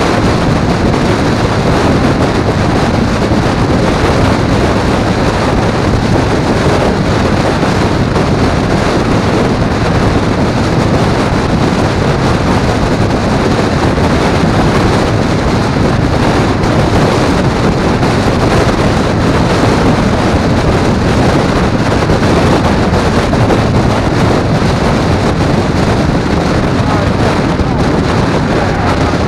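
Loud, steady wind noise on the microphone of a camera riding at highway speed, with vehicle road and engine noise blended underneath.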